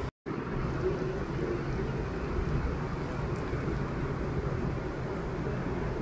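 Steady, low rumbling outdoor noise with no distinct events. It cuts out to silence for a moment just after the start.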